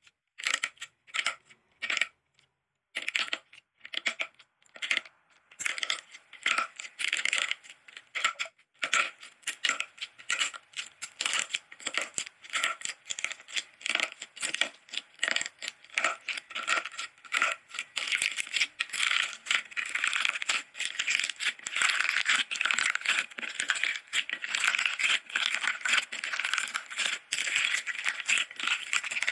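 Hands cracking and squeezing crunchy clear slime with a brittle, glass-like top layer. A few separate cracks come first, then dense crackling and crunching as the shards are pressed and kneaded into the soft slime beneath.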